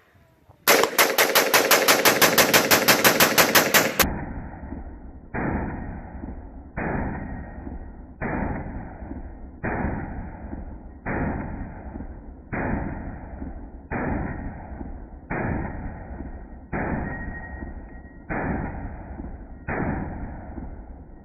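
Custom-built AR-15 rifle fired in one rapid string, about ten sharp shots a second for some three seconds. It is followed by a slower series of about a dozen deeper, muffled booms about one and a half seconds apart, each fading away.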